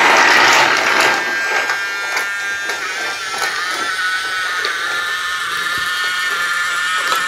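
Small electric motor of a battery-powered toy train running with a steady, slightly wavering whine. A loud hiss during the first second gives way to the whine.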